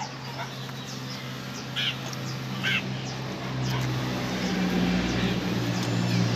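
A steady motor hum that grows louder past the middle, with two short animal calls about two and three seconds in.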